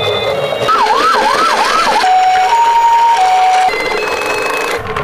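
Electronic ambulance siren: a quick run of rising wails, then the two-note hi-lo ambulance siren, a low and a high note about half a second each. A higher pair of tones follows near the end.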